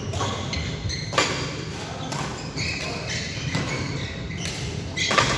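Badminton rally: rackets hitting the shuttlecock in sharp strikes, one about a second in and another near the end, with short high squeaks of shoes on the court mat in between.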